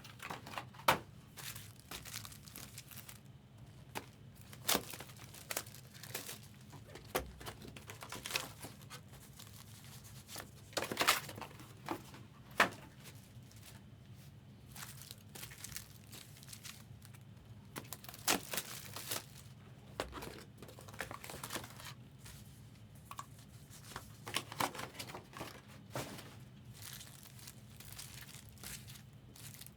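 Trading card packaging, wrappers and boxes, being torn open and crinkled by hand in a string of irregular crackles and sharp snaps, over a steady low hum.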